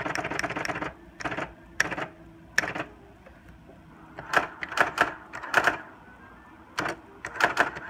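Electronic typewriter mechanism clattering as keys are pressed: a quick run of rapid strikes at the start, then single strikes and short groups of strikes with pauses between them.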